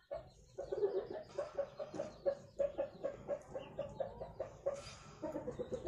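Chickens clucking: a fast run of short, pitched clucks, about four or five a second.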